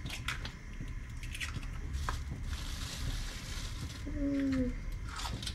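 Light taps and clicks of eggs being handled at the stove, with a soft watery hiss about halfway through. A brief hummed voice note comes near the end.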